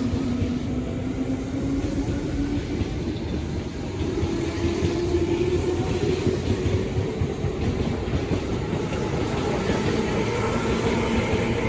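Electric commuter train running on the Tobu Tojo Line, with a steady rumble of wheels on rail and a faint motor whine that rises in pitch in steps as the train gathers speed.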